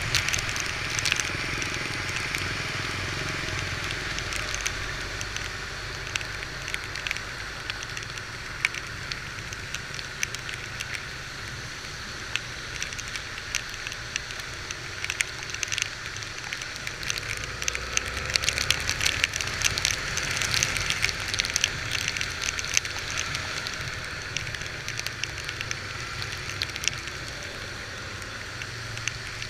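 Heavy rain pattering with many sharp crackling drops, over the low steady running of a Honda XR 250 Tornado's single-cylinder engine and the hiss of wet road.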